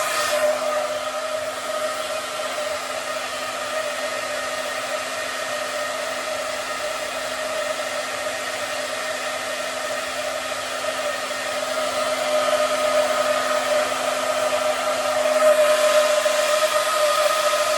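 Hand-held hair dryer running steadily: a rush of air with a steady motor whine. It grows louder about twelve seconds in and again a few seconds later.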